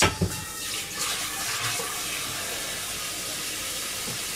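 Water running from a kitchen tap in a steady stream, filling a container with water for the oden pot, after a brief knock at the start.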